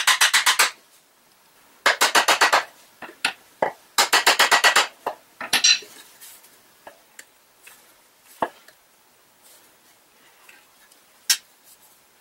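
Small metal hammer rapidly tapping the end of a wooden handle, driving it into a hinoki mallet head: three quick runs of sharp taps in the first five seconds, then only a few isolated light knocks and clicks as the mallet is handled.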